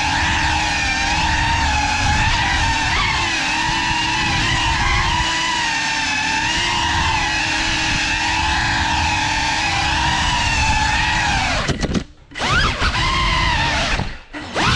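GEPRC CineLog35 cinewhoop's brushless motors and ducted propellers whining steadily in flight, with a pitch that wavers up and down. The whine drops out abruptly twice near the end.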